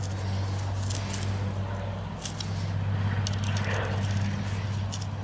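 Scattered small clicks and taps of a screwdriver and metal muffler parts as a string trimmer's muffler and spark arrestor cover are put back together, over a steady low hum, with a brief hiss about three seconds in.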